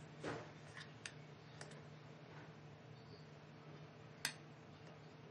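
Leftover rice being spooned into a mixer-grinder jar: a soft knock, then a few faint clicks of the utensil against the jar, the sharpest near the end.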